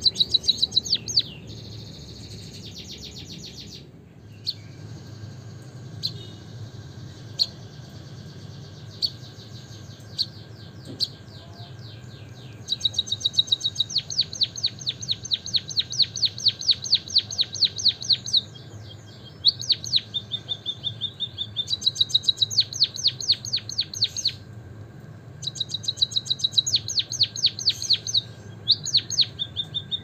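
White-headed munia singing: scattered single high chirps, then long bouts of rapid trilled notes from about 13 seconds on, with short breaks between the bouts.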